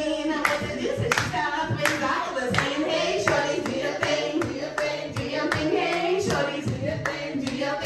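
Hands clapping a steady beat while voices sing or chant along to it.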